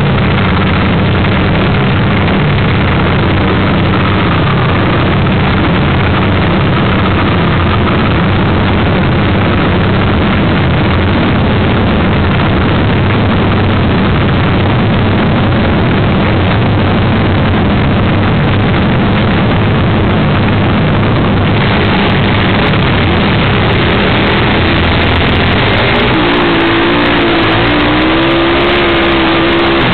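Vintage flat-track racing motorcycle engines running loudly on a dirt oval, with a steady low engine note. Past the two-thirds mark the sound turns brighter, and near the end one engine's pitch wavers up and down as the throttle is worked.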